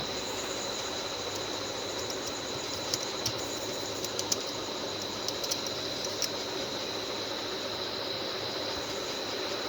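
Hot air rework station blowing steadily, a continuous hiss with a thin high whine, used to desolder two small components from a phone's circuit board; a few light clicks come through.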